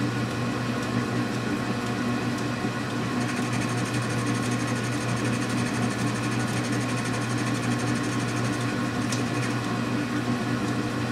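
Metal lathe running steadily, its turning tool taking a light skim cut on the outside of a steel Remington rifle barrel. A faint high whine joins about three seconds in and fades out near nine seconds.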